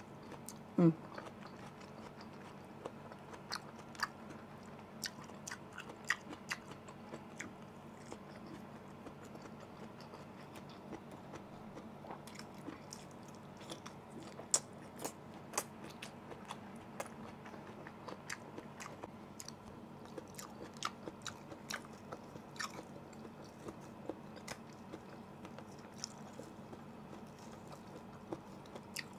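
Quiet, close-up chewing and biting of cooked pinakbet vegetables such as bitter melon and green beans, with many small wet smacks and clicks of the mouth. A short vocal sound stands out about a second in.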